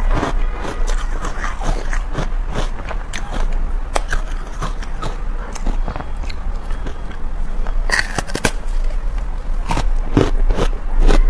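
Ice chunks coated in matcha powder being bitten and crunched, a quick irregular run of sharp cracks and crackles. A steady low electrical hum runs underneath.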